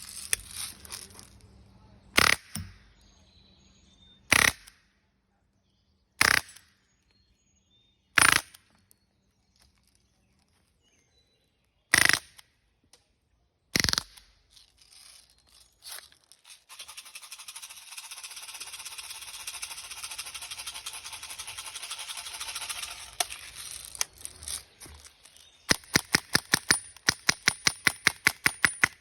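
Air gun shots. Six single shots come a couple of seconds apart, then a steady hiss lasts about seven seconds. Near the end comes a rapid string of about fifteen shots, roughly five a second.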